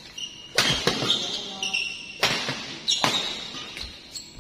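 Badminton rally: about four sharp racket hits on the shuttlecock, at roughly half a second, one second, two and a quarter and three seconds in. Short high squeaks from shoes on the court floor come between the hits.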